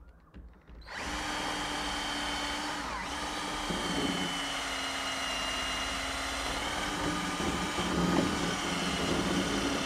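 A small electric motor tool switches on about a second in and runs steadily with a whine. It is being used to clean the top of a PVC window sash before new gaskets are fitted.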